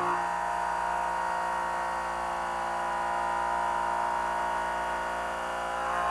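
ProtoTRAK RMX CNC bed mill cutting a slot with a 3/4-inch end mill: a steady machining whine from the spindle and cutter in the metal, holding an even pitch.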